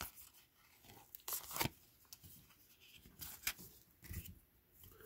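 Faint rustles and light clicks of cardboard trading cards being flipped through and handled, in a few short spells about a second and a half in and again around three and a half seconds in.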